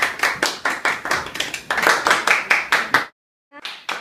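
A small group clapping, quick overlapping hand claps. The clapping cuts off suddenly about three seconds in, then a few more claps come briefly near the end.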